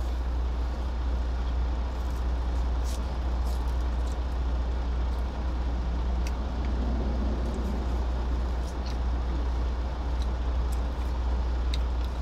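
Idling truck engine heard inside the cab, a steady low rumble, with a few faint clicks and rustles from handling food.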